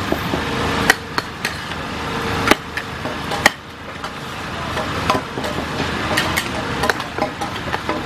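Long-handled metal ladle and spatula knocking and scraping against a large black wok while fried flat rice noodles are stirred and scooped out. Irregular sharp clanks, about one a second, over a steady hiss.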